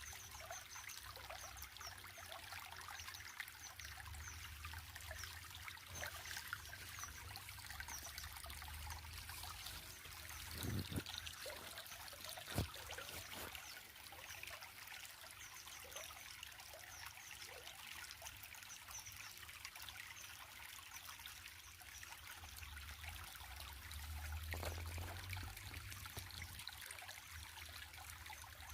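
Water trickling steadily, as in a small stream, with short high chirps repeating in the background. A single sharp tap stands out about twelve and a half seconds in.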